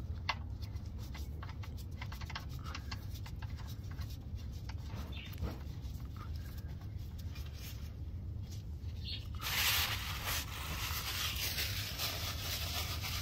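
Faint clicks and taps as a gloved hand threads the oil drain plug into the truck's oil pan, then, about two-thirds of the way through, a louder rustling as a paper towel wipes oil off the pan. A steady low hum runs underneath.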